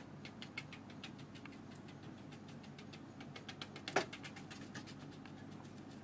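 Splayed, nearly dry watercolour brush dabbing and scuffing paint onto textured paper: a run of quick, light scratchy taps, several a second, with one sharper click about four seconds in.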